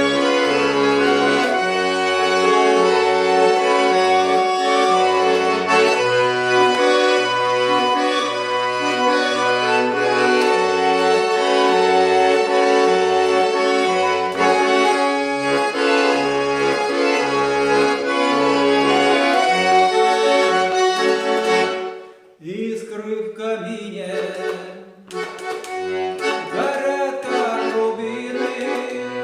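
Accordion playing a melody over regular bass notes. About three-quarters of the way through it breaks off for a moment and comes back softer, with wavering notes and no bass, until the bass returns near the end.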